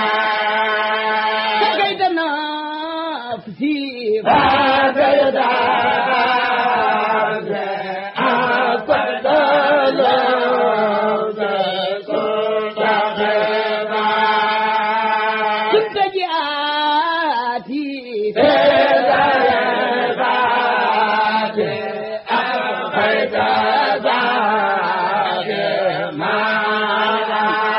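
Khassida chanting: an Arabic devotional poem sung in a continuous chant with wavering, drawn-out notes, broken by short pauses with sweeping pitch slides about two seconds in and again around sixteen seconds.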